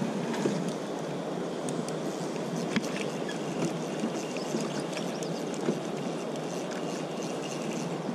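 Steady rush of river current washing past an inflatable raft, with a few light clicks.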